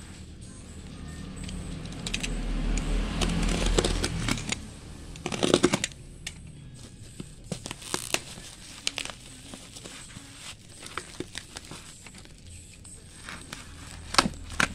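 Black plastic parcel wrapping crinkling and crackling as it is handled and pulled open by hand, with louder crackling between about two and five seconds in and a couple of sharp snaps near the end.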